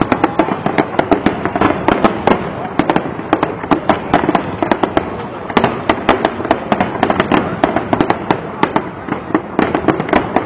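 Fireworks display: a dense, continuous barrage of bangs and crackles from aerial shells bursting, many reports a second with no pause.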